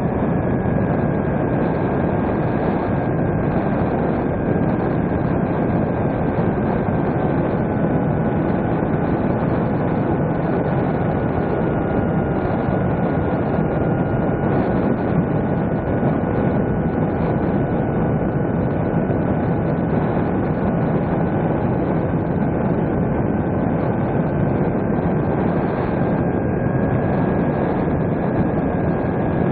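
Electric motor and propeller of a small RC fixed-wing plane running steadily in cruise, heard from the plane's own onboard camera as a steady rush of air and motor noise. A faint thin whine in it dips a little in pitch and comes back up near the end.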